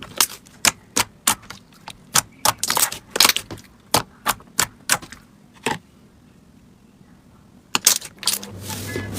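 Slime being pressed and poked, giving sharp clicking pops about three a second for several seconds. They stop for a couple of seconds, then a few more follow. Near the end a low steady hum begins.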